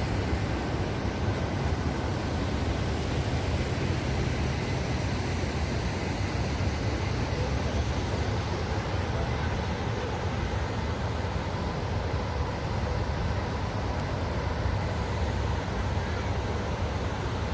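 Waterfall: a steady rush of falling water with a deep, constant rumble.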